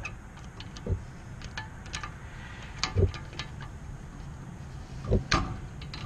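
Needle-nose pliers clicking and knocking against a Ford Fusion's rear brake caliper piston as the piston is turned clockwise to screw it back into the caliper: a handful of short, scattered clicks and knocks.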